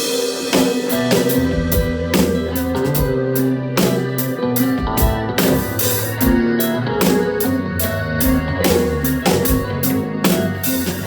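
Live instrumental progressive rock: Chapman Stick bass notes and touch-guitar lines over a drum kit, with regular drum hits.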